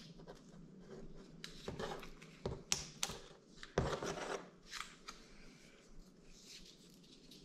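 Blue painter's tape being peeled off the roll in a series of short pulls and wrapped around the end of a trim strip.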